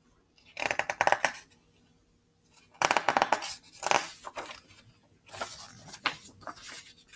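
Paper pages of a picture book rustling and crackling as the book is handled and shifted, in three bursts: about a second in, around the middle, and near the end.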